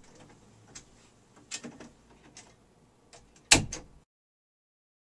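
A door being handled: a few small clicks and knocks, then the door shutting with a loud thump about three and a half seconds in, followed quickly by a second, lighter knock.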